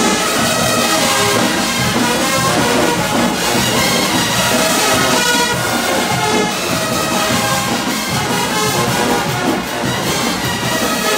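Marching band playing loudly on the field, a full brass section of trumpets and trombones carrying the tune.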